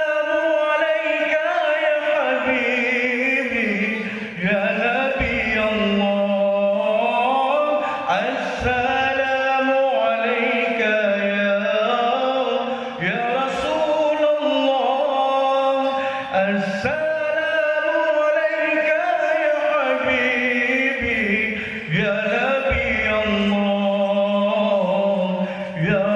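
A man singing an Arabic qasidah in Middle Eastern muezzin style: long held, ornamented notes that bend slowly up and down with a wavering vibrato.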